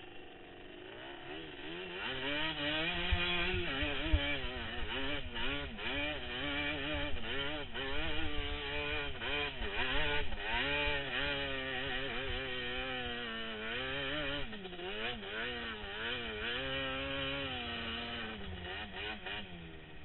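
Sport ATV (quad) engine revving up and down over and over as it is ridden across sand dunes, the pitch swinging with the throttle. It builds up a couple of seconds in and settles lower near the end as the quad slows.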